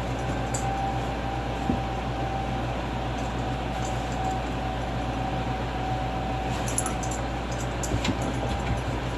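Steady hum of electric fans running, with a thin steady whine and a few faint clicks.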